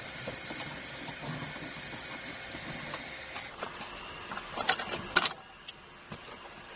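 Light clicks and knocks of an adjustable tension curtain rod and a projector screen being handled and fitted into place, over a steady low hum. Two sharper clicks come about five seconds in.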